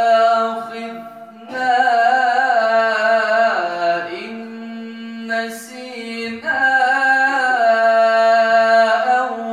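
A man reciting the Quran in the melodic, chanted tajweed style, drawing each phrase out into long ornamented held notes. There is a short break about a second in and a quieter, lower passage in the middle.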